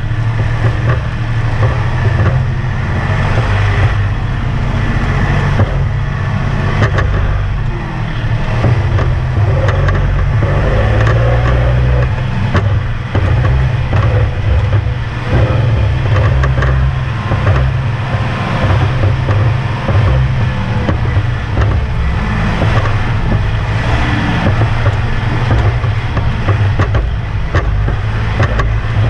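Kubota compact tractor's diesel engine running steadily under way, heard close up from the seat, with frequent short rattles and knocks throughout.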